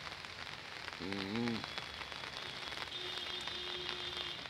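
Light rain pattering on hard surfaces, a steady hiss full of small drop ticks. A short voice sound about a second in, and a faint steady tone in the second half.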